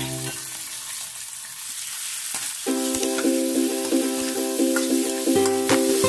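Pork ribs sizzling in hot oil in a metal wok as a metal ladle stirs them, with a few clinks of the ladle against the wok near the end. Background music comes in a few seconds in.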